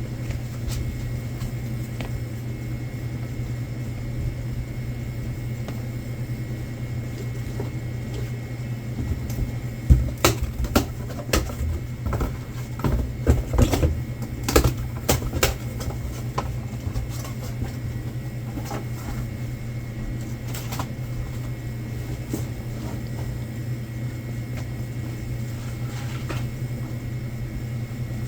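Goods and boxes being knocked and set down while stocking shelves, a burst of clatter about a third of the way in that lasts several seconds, over a steady low machine hum from the store's equipment.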